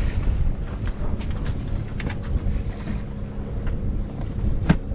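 Wind buffeting the microphone over waves washing against a pontoon boat, with a few sharp knocks on deck, the loudest near the end.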